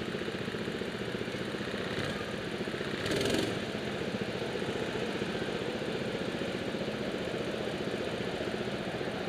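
Go-kart engines idling in the pit lane, a steady rapid chugging, briefly louder about three seconds in.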